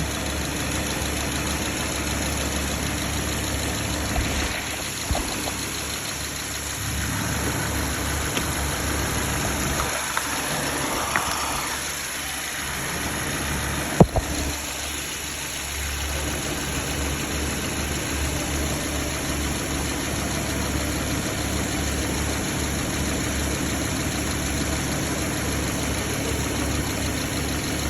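2011 Subaru Impreza's flat-four engine idling steadily, its AC compressor clutch not engaging: the clutch is faulty. A single sharp click about halfway through, with a few brief rustles of handling before it.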